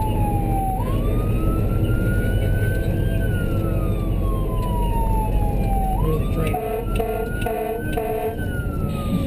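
Emergency vehicle siren wailing, slowly rising and falling in pitch, over the engine and road rumble of the responding vehicle. About six and a half seconds in, about four short horn blasts sound over the siren.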